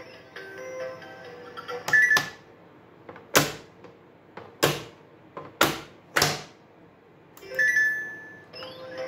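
Plastic lids of a children's pop-up animal toy pressed shut one after another, a series of sharp plastic snaps about a second apart, with brief tinkly tones in between.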